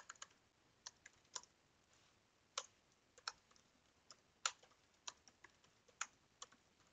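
Typing on a computer keyboard: faint, irregular keystrokes, about two a second, with a short pause near the start.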